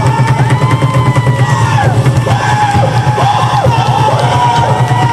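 Live music with drums: a fast, even drumbeat runs throughout while high tones rise and fall in short arcs over it.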